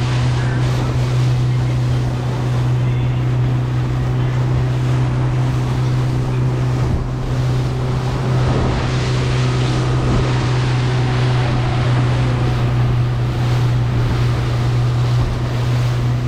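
Boat motor running steadily under way with a constant low drone, with water rushing past the hull and wind buffeting the microphone.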